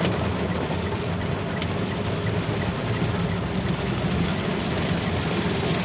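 Steady low rumble of a moving motor vehicle, engine and road noise running evenly with no horn sounding.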